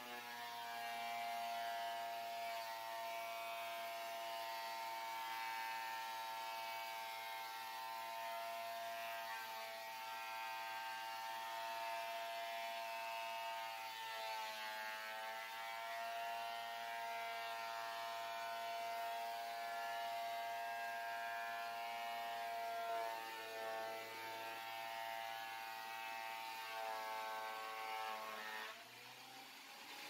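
WEN benchtop thickness planer running and planing a softwood board: a steady motor whine made of several stacked tones, dipping slightly in pitch under load a few times. Just before the end it drops in level as the board clears the cutterhead.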